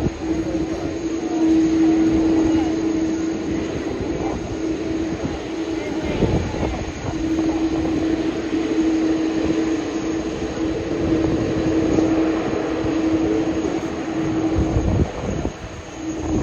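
Jet airliner engine noise, a continuous roar with a steady droning tone, with voices faintly in the background.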